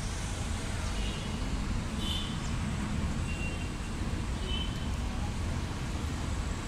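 Steady low outdoor background rumble, like distant traffic or wind, with a few short, high chirps scattered through it.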